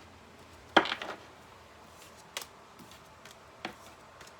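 Tarot cards being handled on a table: one loud, sharp click a little under a second in, then three lighter clicks spaced about a second apart.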